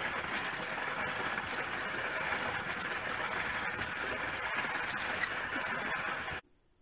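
Sled runners sliding over snow-covered lake ice: a steady scraping hiss that cuts off suddenly near the end.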